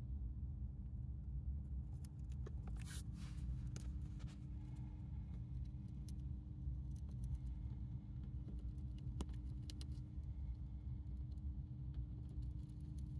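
Dwarf hamster chewing a crisp lettuce leaf: faint small crunching clicks scattered through, with a brief rustle about three seconds in. A steady low hum sits under it all and is the loudest sound.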